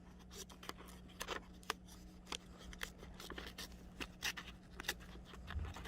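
Small scissors of a Leatherman Wave Plus multitool cutting paper: a series of faint, irregular snips and clicks.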